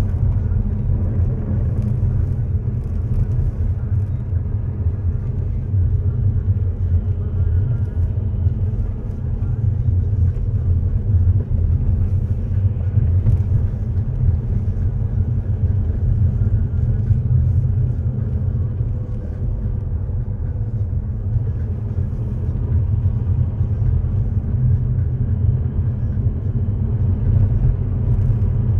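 Car driving on a snow-covered road, heard from inside the cabin: a steady low rumble of tyres and engine.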